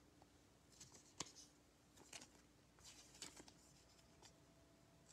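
Near silence, with a few faint, brief rustles and clicks of trading cards being handled and slid between the fingers.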